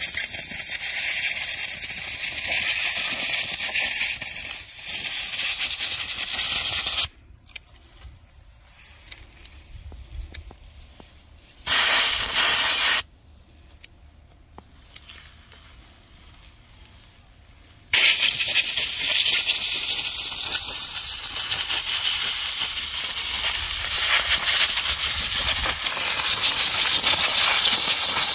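Compressed-air blow gun blasting soil off freshly dug ginger roots: a loud, steady hiss of air. It cuts off about seven seconds in, comes back as one short blast around twelve seconds, then runs steadily again from about eighteen seconds on.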